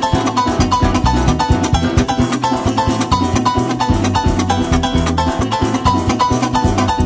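Llanero joropo music: fast plucked strings, harp-like runs and strummed chords over a steady bass line, played without pause.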